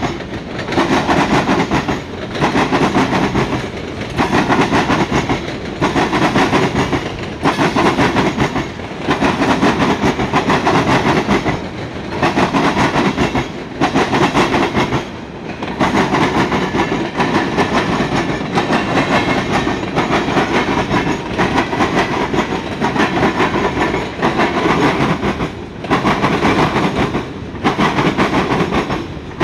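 Freight cars of a mixed freight train, tank cars and covered hoppers, rolling past: a steady rumble and clatter of steel wheels on the rails that swells and dips in a regular beat about every second and a half.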